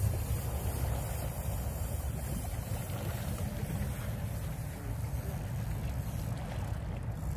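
Wind rumbling steadily on the microphone over the wash of the sea, with no distinct event.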